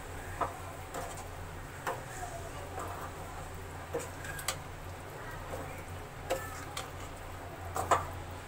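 Metal ladle stirring cooked white peas in an aluminium pan, clinking against the pan at irregular moments about six times, the sharpest near the end, over a steady low hum.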